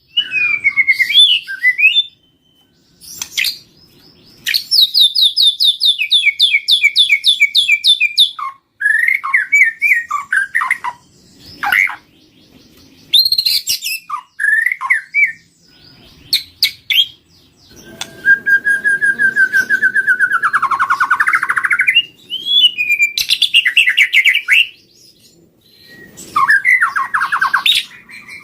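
White-rumped shama (murai batu) singing a varied song of rapid chattering trills and whistled, sweeping phrases, with short pauses between phrases. This is a lure song of the kind played to draw in wild shamas.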